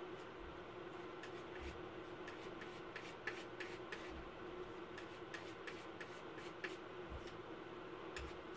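Faint, irregular taps and rubbing of paint tools as a brush or palette knife works paint, about a dozen small ticks spread unevenly, over a steady hum.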